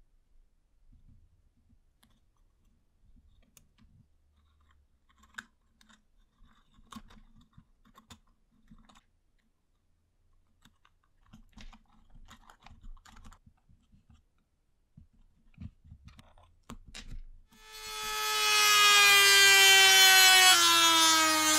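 Faint clicks and taps of wooden popsicle sticks being handled and set into place. About eighteen seconds in, a handheld rotary tool with a small cutting disc spins up to a loud, steady whine. Its pitch sags a little as the disc cuts into the popsicle-stick cylinder.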